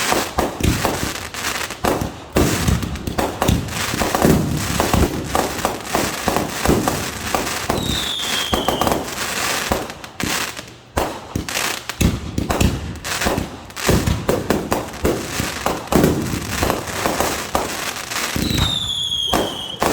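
Fireworks going off in rapid succession: a dense run of bangs and crackling, with a falling whistle about eight seconds in and another near the end.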